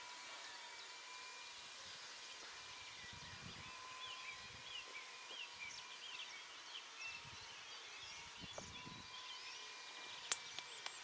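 Birds chirping and singing over a faint, steady high-pitched drone from a tiny model-airplane combustion engine flying high overhead. A few sharp clicks come near the end.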